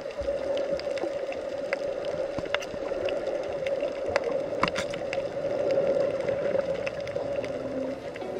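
Underwater sound picked up by a camera in its housing: a steady, muffled drone with scattered sharp clicks.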